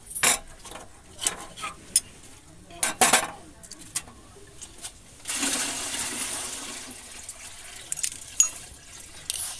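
Light clinks and knocks of a glass mug, china saucer, spoon and glass jar being handled, with a steady rushing noise lasting about two seconds midway.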